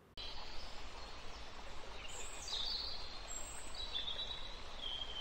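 Faint outdoor ambience, a steady low hiss with a few faint, high bird chirps in the second half.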